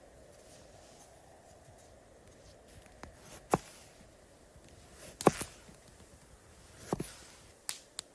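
A few separate sharp knocks and clicks over a low steady hiss, the loudest a little past the middle.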